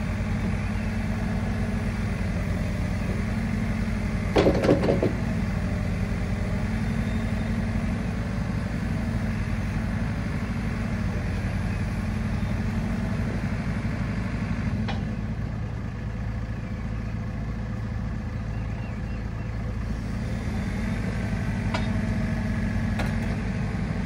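JCB 4CX backhoe loader's diesel engine running steadily while the backhoe digs out a trench. There is a loud clatter about four and a half seconds in and a few lighter knocks later on.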